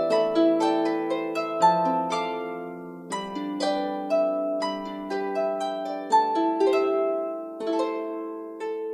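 Background music: a gentle melody of plucked notes, about three a second, each ringing briefly and fading.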